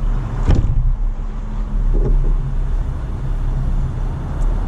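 Vehicle engine idling steadily, with a light metal click about half a second in as a wrench is fitted onto a tail-light bolt.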